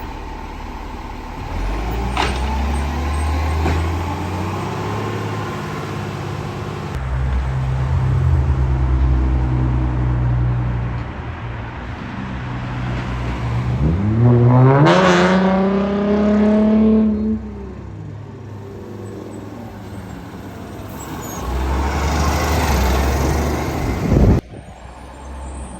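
Garbage truck's diesel engine running, revving up about halfway through, holding high for a few seconds and dropping back. A short, loud, sharp burst near the end, after which it goes quieter.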